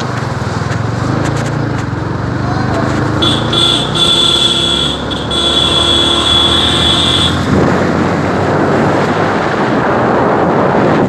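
Motorcycle running while being ridden, with engine hum and road noise. For about four seconds in the middle a steady high-pitched electronic beep sounds, broken once briefly. Wind noise on the microphone rises near the end.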